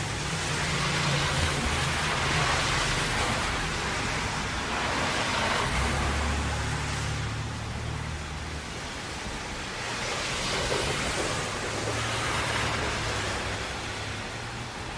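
Traffic driving past on a rain-soaked highway: tyres hissing through standing water in several swelling and fading passes, over a steady wash of rain, with the low hum of engines growing stronger for a couple of seconds past the middle.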